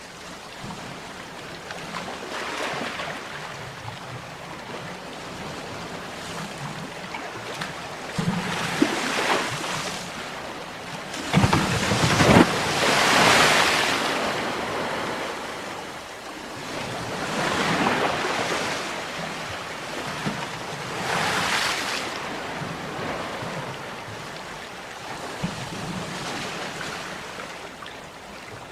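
Ocean waves breaking and washing in, one after another, each a swell of rushing noise; the biggest comes about twelve seconds in.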